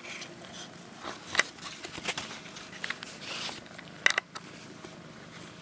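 Handling noises: rustling with a few sharp clicks, the loudest about a second and a half in and again near four seconds, as things are handled while cat food is being readied.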